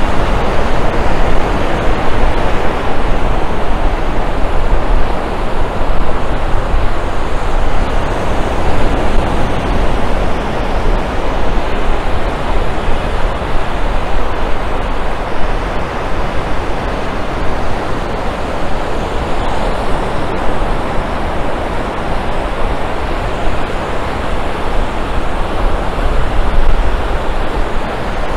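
Ocean surf washing steadily onto a sandy beach, with a low rumble underneath.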